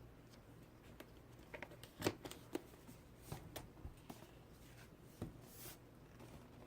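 Cardboard laptop box being handled and opened: faint rustling with scattered light taps and clicks, the sharpest about two seconds in, and a short sliding scrape about five and a half seconds in.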